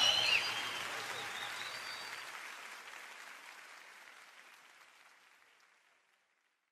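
Congregation applauding and cheering at the end of a live worship song, fading out steadily until it is gone about five and a half seconds in.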